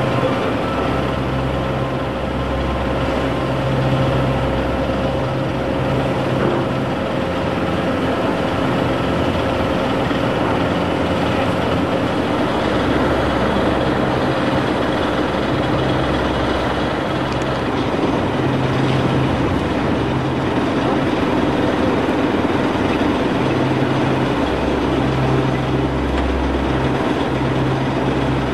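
Steady engine-like running noise with a low rumble that swells and fades every few seconds, and a faint steady tone through the first half.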